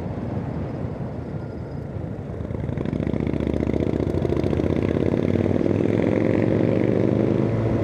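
150cc scooter engine running, growing louder and picking up speed from about two and a half seconds in, its pitch climbing slowly as the scooter accelerates.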